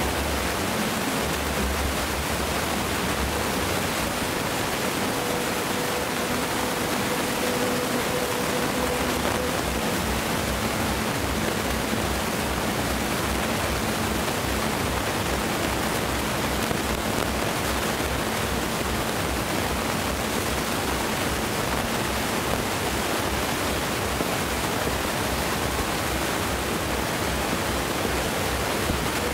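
Steady, even rushing noise with no distinct bangs from the distant fireworks. A faint hum comes in a few seconds in and fades out again.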